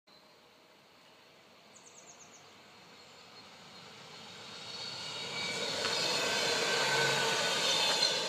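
SBB electric commuter train approaching and passing close by, its rolling and running noise building from faint to loud over the second half. A short run of high chirps comes about two seconds in.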